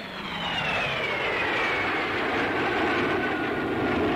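Swept-wing jet fighter flying past, its engine whine falling steadily in pitch over a steady rushing jet noise.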